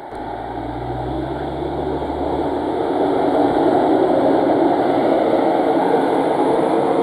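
Ise Railway diesel railcar moving off and running close past: a low engine drone for the first two seconds or so, then the rumble of the car on the rails growing steadily louder as it comes alongside.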